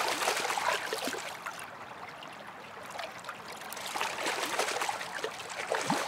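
Water splashing and churning as a predatory chub (kkeuri) leaps and lunges at the surface. The splashing is strongest in the first second and again in the second half, quieter in between.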